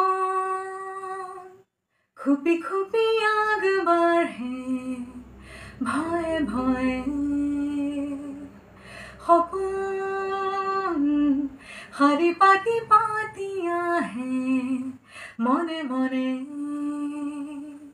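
A woman singing a melody unaccompanied, in phrases with long held notes and short breaths between them.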